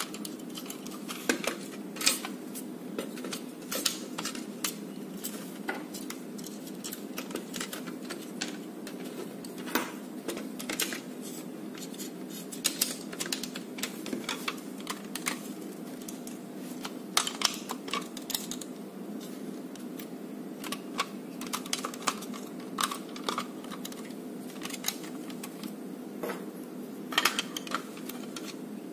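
Plastic parts of a Nerf Elite Retaliator blaster clicking and tapping irregularly as pieces such as the trigger assembly and plunger tube are handled and set into its open plastic shell.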